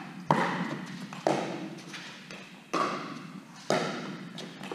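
Pickleball rally: the hard plastic ball popping off the paddles four times, about a second apart. Each pop rings on briefly in the large indoor hall.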